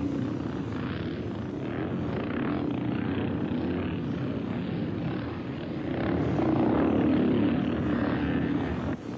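Motorcycle engines droning steadily together, swelling louder about six seconds in.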